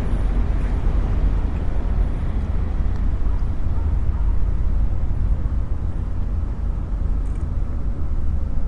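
Freight train of autorack cars rolling past, a steady low rumble of wheels on rail with no horn.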